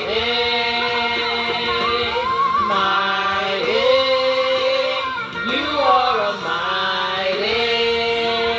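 Worship singing in long held notes, each sustained for a second or two with slides between them, heard through a small karaoke speaker.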